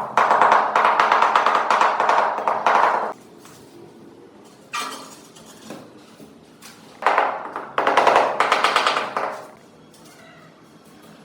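Tile-laying work: two long bursts of rapid rattling and clattering, about three seconds and two and a half seconds long, with a short knock between them.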